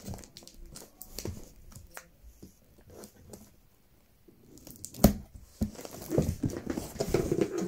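Scissors snipping and cutting through the packing tape on a cardboard box, a run of small sharp clicks and tearing. A single loud knock comes about five seconds in, followed by crinkling and rustling of cardboard and packaging as the box is pulled open.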